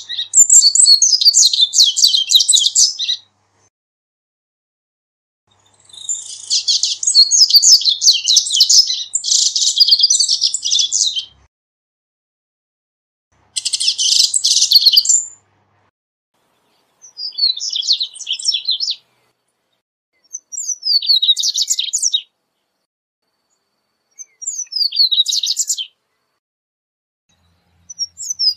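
Double-collared seedeater (corbatita) singing: about seven bouts of fast, high twittering song with silent pauses between them. The first bouts are long, and the later ones are shorter phrases of quick notes.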